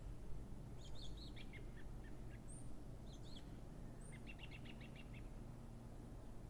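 Small birds chirping faintly over a quiet outdoor background, with a quick trill of repeated notes about four seconds in.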